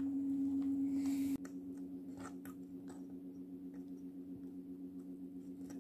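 Faint scattered clicks and taps of small wooden ornaments being handled and hung on a wooden tabletop Christmas tree, over a steady low hum that drops in level about a second and a half in.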